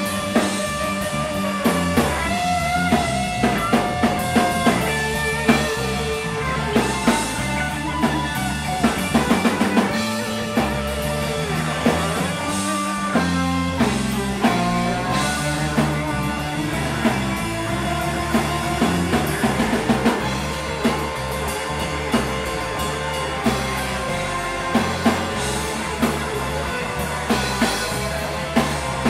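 Live rock band playing an instrumental passage: an electric guitar lead with sustained, bending notes over bass and a full drum kit.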